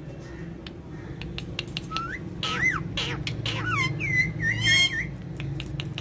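Ringneck parakeets whistling and chirping: a string of short whistled notes that rise and fall in pitch, starting about a second and a half in and getting louder and busier. A steady low hum runs underneath.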